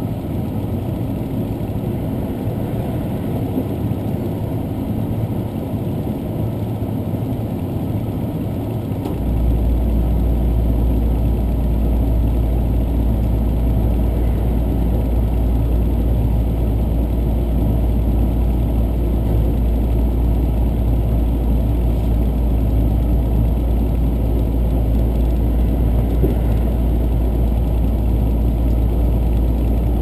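Diesel limited-express train running, heard inside the passenger carriage: a steady low rumble. About nine seconds in, a deeper, louder hum comes in and holds.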